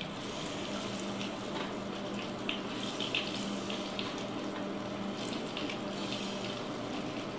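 Catfish pieces deep frying in a pot of hot oil: a steady sizzle, with scattered light clicks as metal tongs and a slotted spoon move the pieces in the pot, over a faint steady hum.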